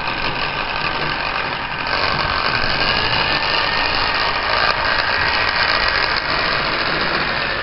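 Electric hand mixer running steadily at speed, its beaters whipping egg whites in a tall beaker.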